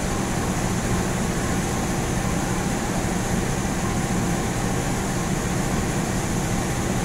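Diesel-electric locomotive engine idling with a steady hum, unchanging throughout.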